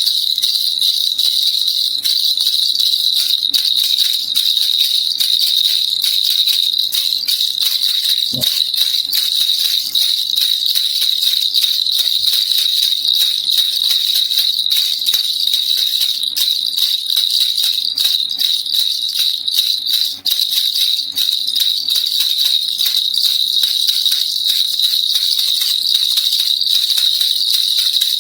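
Baby rattle (kilukilupai) shaken continuously: a dense, steady, high-pitched jingling rattle of many tiny clicks.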